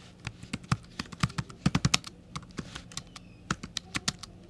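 Typing on a computer keyboard: a quick, irregular run of keystrokes as a few words are entered.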